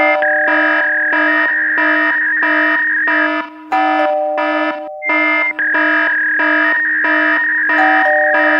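Loud, distorted electronic tones pulsing in a fast, even rhythm, with several held notes stacked over a steady low tone; the higher notes switch pitch every second or two and the sound drops out briefly about halfway through.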